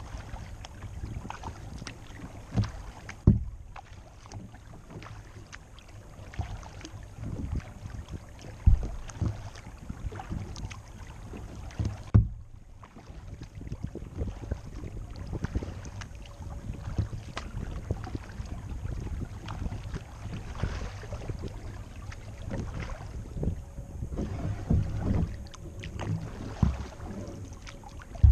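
Paddling a plastic kayak on calm water: irregular paddle strokes and dripping water, over a low rumble, with a few sharp knocks scattered through.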